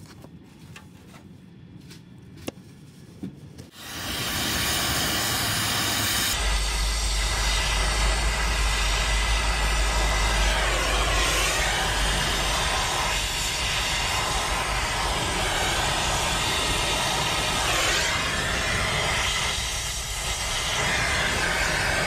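Faint handling clicks, then about four seconds in an oxy-acetylene torch comes on and its flame hisses steadily while heating a copper refrigerant line joint for brazing, with a low rumble underneath from about six seconds in.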